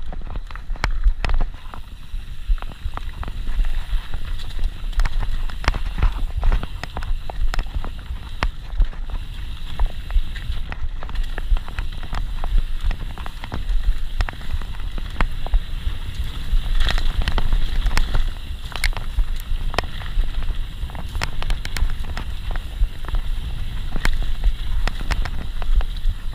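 Mountain bike ridden fast over a rough dirt trail: wind rumbling on the microphone, with constant rattles, clicks and knocks from the bike jolting over bumps and roots.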